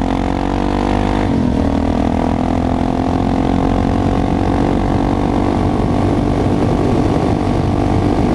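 Suzuki DR-Z supermoto's single-cylinder four-stroke engine running on the move. Its pitch drops at a gear change about a second in, then it holds a steady cruise.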